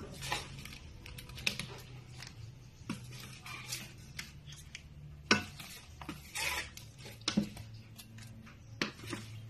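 Wooden spatula scraping and knocking in a stainless steel pan as cooked shrimp are scooped out into a bowl: scattered short scrapes and clinks every second or so, over a low steady hum.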